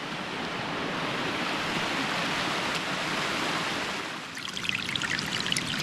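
Steady rushing of running water, like a hill stream. About four seconds in it gives way to a crackly, spattering patter.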